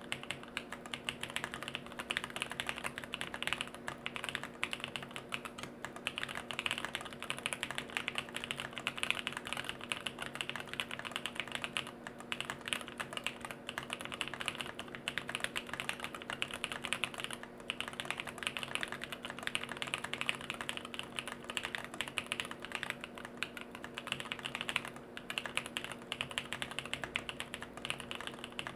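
Fast, continuous typing on a jLabs JP-02 mechanical keyboard with Bolsa Supply Corsa switches on an FR4 plate, no foam inside and Durock V2 stabilizers: a dense stream of keystroke clacks with only brief lulls.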